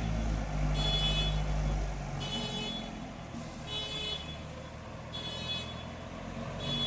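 A heavy machine's engine running at a low rumble that drops off about two seconds in, under an electronic warning beeper sounding a short high beep about every second and a half, typical of a vehicle's reversing alarm.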